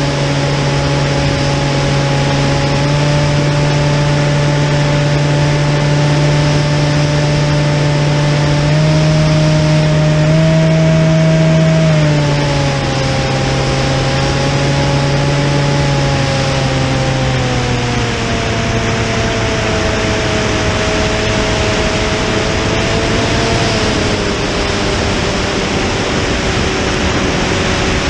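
Model aircraft's motor and propeller running steadily, heard from a camera on the plane with wind rush over it. The pitch rises a little, climbs higher about a third of the way in, then drops and drifts lower through the second half as the throttle is eased back.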